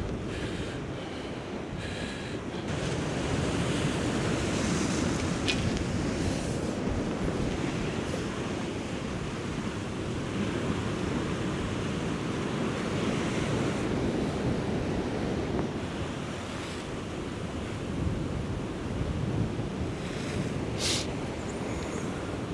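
Sea waves washing against a rocky shore, swelling and easing, with wind buffeting the microphone. A short sharp click near the end.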